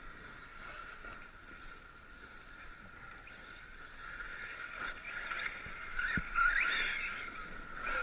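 Team Associated DB8 brushless electric RC buggy driving over dirt, getting louder in the second half, its motor whine rising in short sweeps as it accelerates, with a single thump about six seconds in.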